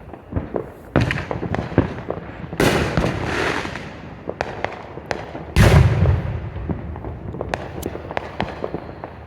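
Fireworks going off: a bang about a second in, a long crackling burst near three seconds, and the loudest deep boom at about five and a half seconds, with scattered sharp pops throughout.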